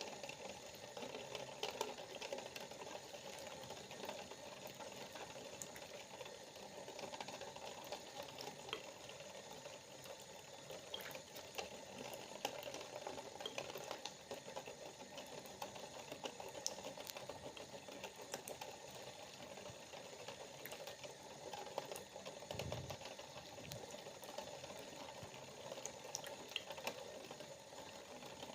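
Water droplets dripping and splashing in a fast, continuous patter of small ticks, with a brief low thud about three-quarters of the way through.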